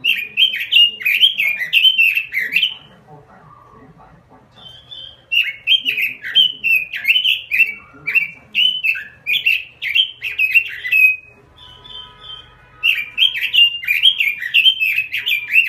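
Red-billed leiothrix (Pekin robin) singing: three bouts of fast, warbling whistled phrases separated by pauses of a couple of seconds, the later two each introduced by a short, higher trill.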